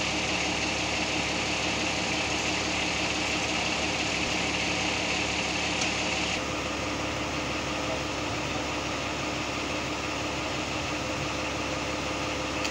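A vehicle engine idling steadily under a constant hiss. The hiss thins out suddenly about six seconds in.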